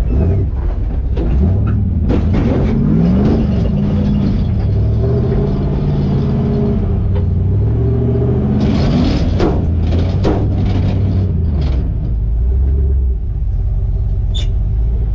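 Old Willys Wagon's engine revving up and down under load while crawling over rough ground, heard from inside the bare metal cab. Occasional sharp knocks and rattles come through, most of them in the middle of the stretch.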